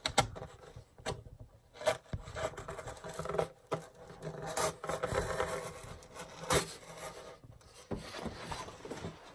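Sharp craft-knife blade drawn through foam board in uneven, scratchy rasping strokes, with a sharper click about two seconds in and another past the middle.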